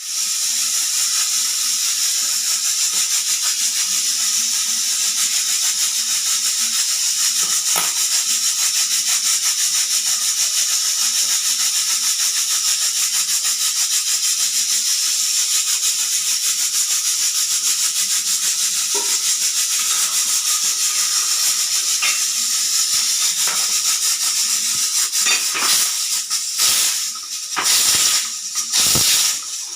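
Pressure cooker's whistle weight venting steam in a loud, steady hiss with a fast rattling flutter. Near the end it breaks into several separate puffs.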